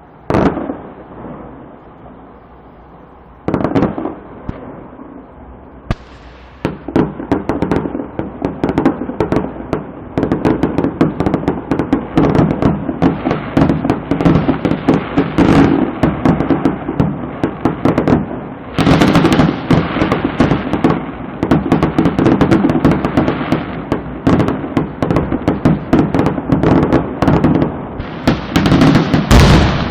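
Fireworks display: two separate bangs in the first few seconds, then from about six seconds in a dense, continuous barrage of rapid bangs and crackling, loudest about two-thirds of the way through and again near the end.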